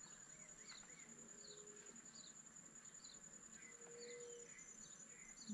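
Faint bird calls: short falling chirps repeated a little under a second apart, with a few softer notes below them, over a steady high buzz.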